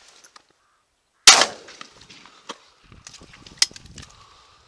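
A single shotgun shot about a second in, loud and sharp, with its sound trailing away over the next half second. Afterwards there is faint rustling and one sharp click.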